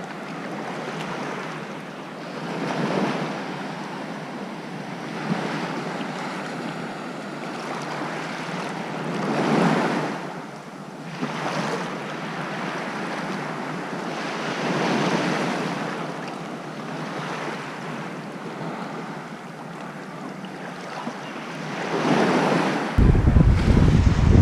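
Sea waves breaking and washing up the shore, with wind; the surf swells and fades about every six seconds. Near the end, wind starts buffeting the microphone with a loud low rumble.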